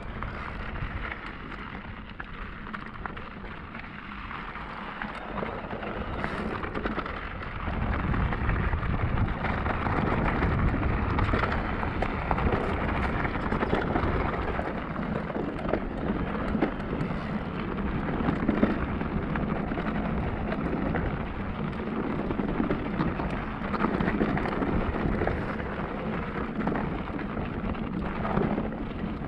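Riding noise from a Cube Stereo Hybrid 160 e-mountain bike on a rough trail: tyres rolling and crunching over the ground, with the bike rattling and knocking over bumps and a low rumble underneath. It gets louder about seven seconds in.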